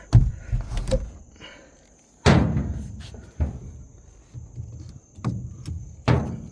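A series of knocks and thuds, about six in all, the loudest about two seconds in with a short ring after it.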